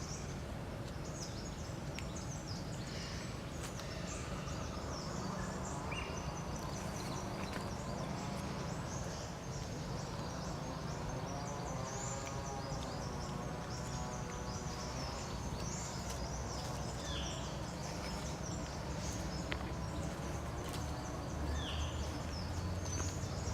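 Outdoor forest ambience: many short, high bird chirps and insect noise over a steady low rumble.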